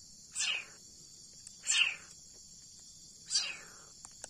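Leopard cat kitten making three short hissing sounds about a second and a half apart, each falling in pitch, over a steady high chirring of insects.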